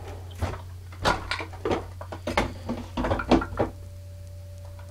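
Clatter of objects being handled close to the microphone: a quick run of sharp clicks and knocks over about three seconds, then a faint steady tone to the end.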